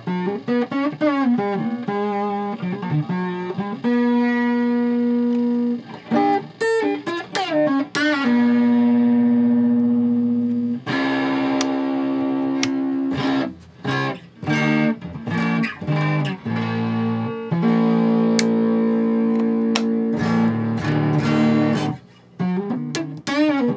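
Electric guitar played through a hand-built Dumble Overdrive Special–style tube amp via its FET input: picked single notes with bends and vibrato, several long held notes, the guitar slightly out of tune. It shows the amp's FET input stage passing signal.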